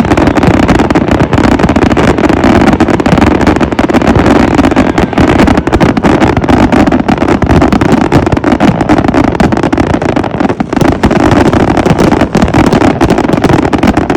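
Fireworks grand-finale barrage: a rapid, unbroken run of explosions, so dense that the bangs merge into one loud, constant rumble.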